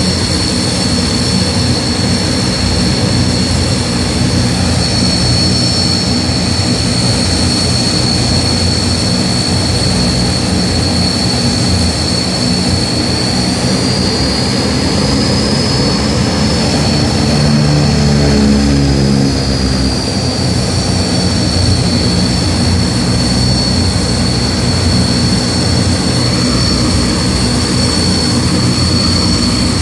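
Antonov An-12's four Ivchenko AI-20 turboprop engines running as the aircraft taxis: a loud, steady propeller drone with a strong high-pitched turbine whine. About halfway through, the whine rises a little and a deeper throb swells, then both settle back.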